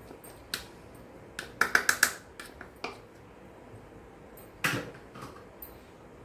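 A few sharp clicks and taps of a plastic measuring spoon knocking against a mixing bowl to shake off the last of the chaat masala. There is a quick run of four taps about two seconds in, and a duller knock near the five-second mark.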